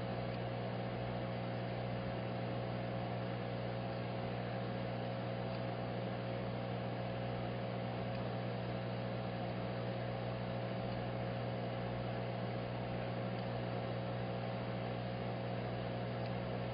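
Steady electrical mains hum with a faint hiss beneath it, unchanging throughout.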